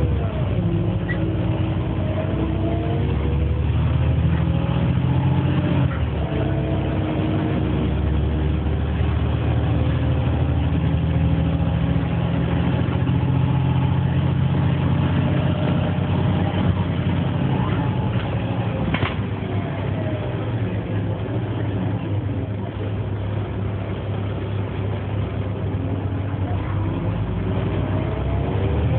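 Volvo B7LA articulated bus (Wright StreetCar) heard from inside the passenger saloon on the move. The diesel engine rumbles steadily, with a drivetrain whine that rises as the bus speeds up, holds while it cruises and falls away as it slows. There is a single sharp click near the middle.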